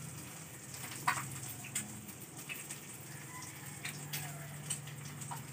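Eggs frying in oil in a pan on a gas stove: a steady sizzle with scattered pops and crackles, over a faint low hum.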